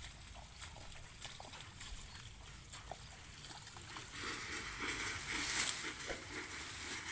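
Water sloshing and splashing in a flooded field, with scattered light clicks, growing louder about four seconds in.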